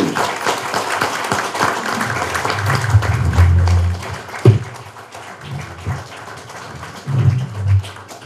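Audience applauding at the end of a speech: dense clapping that thins out after about four seconds, with a sharp knock midway and a few low thumps.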